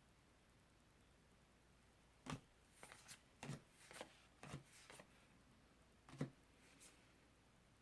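Soft taps and rustles of tarot cards being handled and laid down, about eight short sounds spaced half a second to a second apart, starting about two seconds in.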